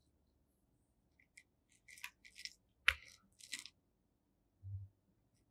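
Marker pen scratching on a whiteboard in a quick series of short strokes, with one sharp click about halfway through and a soft low thud near the end.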